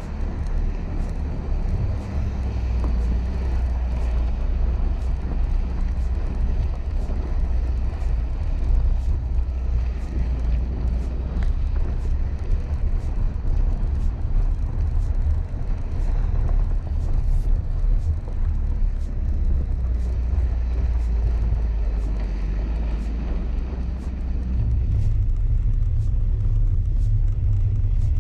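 2022 Mahindra Thar petrol's engine running under load while it drives over a mud track: a steady low rumble with frequent short knocks and rattles. The engine note changes and settles a little higher near the end.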